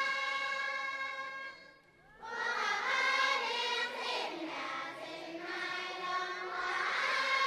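A group of voices singing in chorus, holding long sustained chords. The singing breaks off briefly about two seconds in, then resumes with several gliding, interweaving voice lines before settling back into a held chord near the end.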